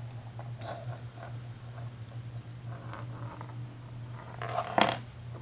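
Small metal clicks, taps and light rattles from a deadbolt lock's parts and tools being handled, with one sharper, louder click or clatter near the end, over a steady low electrical hum.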